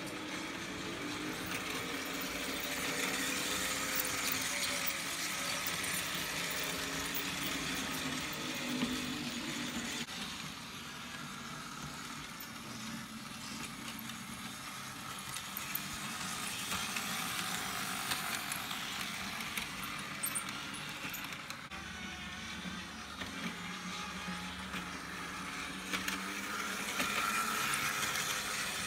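Märklin model trains running on the layout's metal track: a steady whir of small electric motors and wheels, with light clicking over the rails. It grows louder near the end as a locomotive passes close.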